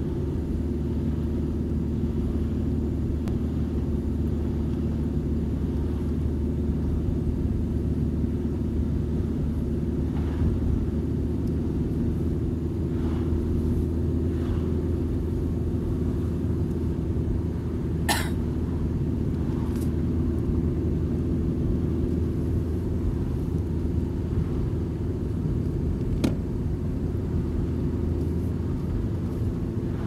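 Car interior noise while driving: a steady low rumble of engine and tyres on the road, heard from inside the cabin. A few sharp clicks stand out, the loudest about eighteen seconds in and another near twenty-six seconds.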